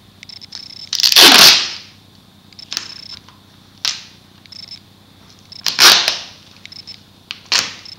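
Duct tape being pulled off the roll in loud ripping pulls: a long rip about a second in, a short one near four seconds, another near six seconds and a short one near the end.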